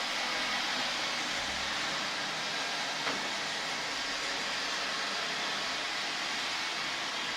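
Robot vacuum cleaner running: a steady hiss from its suction fan and brushes, with a faint click about three seconds in.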